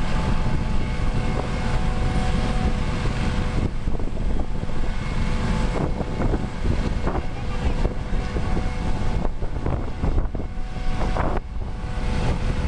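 Twin Turbomeca Arriel turboshaft engines of an Airbus Helicopters AS365 N3 Dauphin running on the ground with the main rotor turning, during an engine ground run after maintenance. A steady turbine whine sits over a heavy low rumble.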